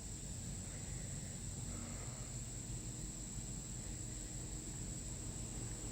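Quiet background with a steady high-pitched whine and a low rumble, and no distinct event.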